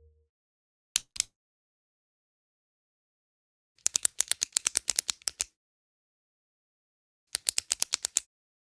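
Retractable pen's push button clicking: two clicks about a second in, then a rapid run of about a dozen clicks, and a shorter rapid burst near the end, with silence between.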